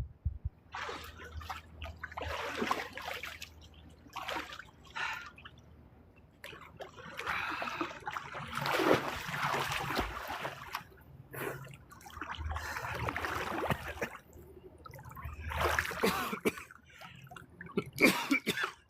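Swimming-pool water splashing and sloshing close by in irregular bursts as a swimmer moves through it, loudest about nine seconds in and again near the end.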